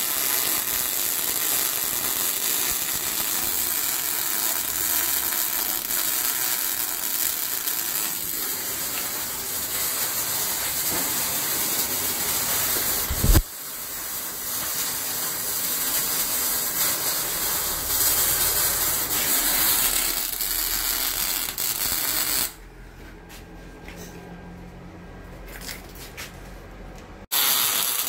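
Dual-pulse MIG welding arc from a RETOP MIG 200 welder, crackling and hissing as wire is fed into the weld, with a sharp click about halfway. Near the end the arc stops for about five seconds, leaving a quieter low hum, then strikes again.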